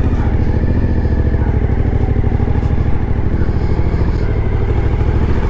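Suzuki V-Strom motorcycle engine running steadily at low speed, a low rumble of fast, even firing pulses.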